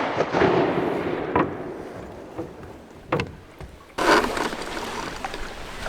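Shotgun shots at ducks over the water: the echo of one blast fades away, two sharp clicks follow, then a second blast goes off about four seconds in and its echo fades slowly.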